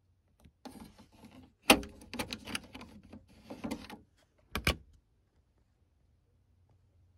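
Hard plastic clatter as a Maxell cassette is pulled out of the open tape well of a Realistic SCT-11 cassette deck: one loud clack a little under two seconds in, rattling and scraping for a couple of seconds, then a quick double click.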